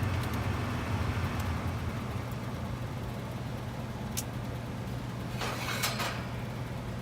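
Gas furnace running with a steady low hum, with a single sharp click about four seconds in and a short rustle near the end.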